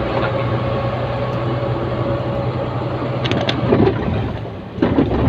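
Truck engine running steadily while driving, heard from inside the cab, with a few short clicks or rattles a little over three seconds in and a brief dip in loudness near the end.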